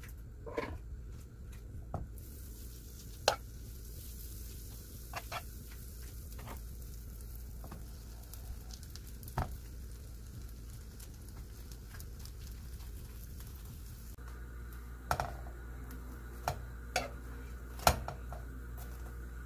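Butter sizzling in a nonstick frying pan with slices of bread frying in it; the sizzle sets in about two seconds in. Several sharp clicks of metal tongs against the pan come near the end as the slices are turned.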